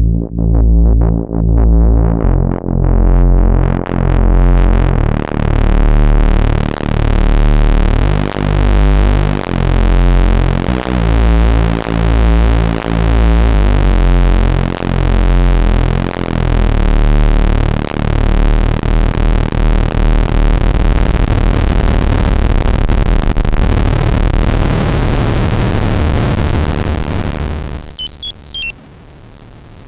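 Behringer Odyssey synthesizer playing a low, repeating bass sequence whose filter opens over the first few seconds, so it grows steadily brighter. Later the notes blur into a dense buzzing drone, and near the end a run of high bleeps sweeps downward.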